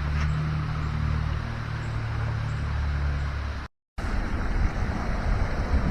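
An engine running steadily at a low, even pitch, which stops at an abrupt cut about three and a half seconds in; after it, a steady low rumble of noise.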